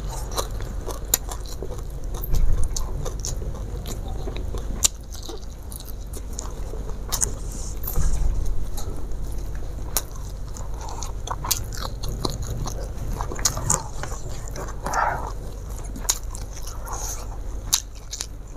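A person chewing a mouthful of rice and raw leaves close to a clip-on microphone, with frequent wet mouth clicks and small crunches over a low steady hum.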